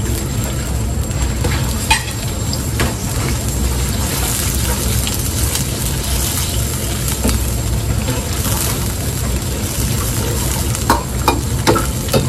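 Sliced pork and onions sizzling in hot oil in a steel wok, stirred with a metal ladle that scrapes and knocks against the pan, with a cluster of sharp knocks near the end. A steady low rumble runs underneath.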